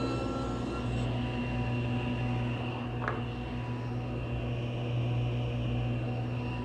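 Table saw motor running steadily with a constant hum and whine, and a couple of short high squeaks about three seconds in and near the end.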